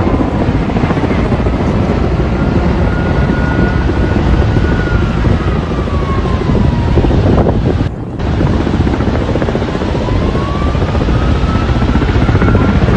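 Helicopter running, with a fast rotor chop and a faint whine that slowly drops in pitch and later rises again. The sound breaks off briefly about eight seconds in.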